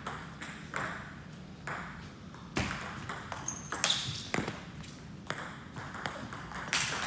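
Table tennis rally: the celluloid-type ball clicking off the players' paddles and bouncing on the table, a sharp tick about every half second, with the loudest hits in the middle.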